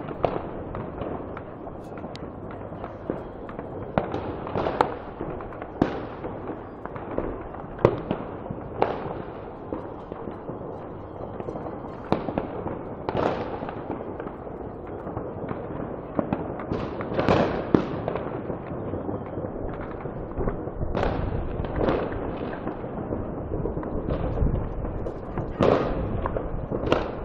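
Fireworks and firecrackers going off across a city: many sharp bangs and pops of varying loudness at irregular intervals, over a continuous rumble of more distant explosions.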